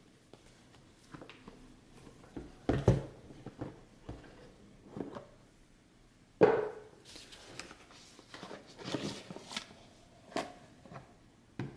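Cardboard watch box being handled and opened: a few dull knocks, the heaviest about 3 s in and another sharp one about 6.5 s in, with light scraping, rustling and small clicks of paperboard between them.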